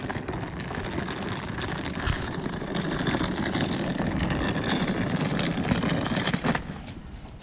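Small hard wheels of a rolling suitcase running over rough concrete, a steady rumble with many small clicks, mixed with footsteps. It dies down about six and a half seconds in.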